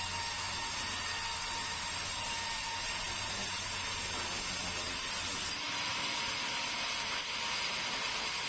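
Sawmill saw running steadily, with a faint whine. About five and a half seconds in, the low hum drops away and a hissier sound takes over.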